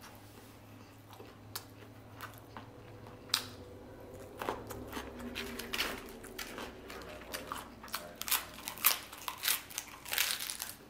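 Close-miked chewing of a mouthful of Spam and rice: wet mouth smacks and scattered crisp clicks and crunches, busier and louder from about halfway through.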